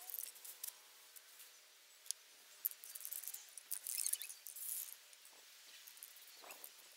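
Aerosol spray-paint cans being handled, with scattered light clicks and clinks of the cans, and a short spray hiss around the middle.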